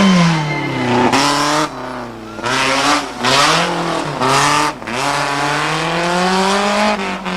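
Rally car engine coming off the throttle with falling revs, then accelerating hard through the gears: the pitch climbs and drops at each gear change, with loud full-throttle bursts between about one and four and a half seconds in. After that it runs a long steady climb in revs.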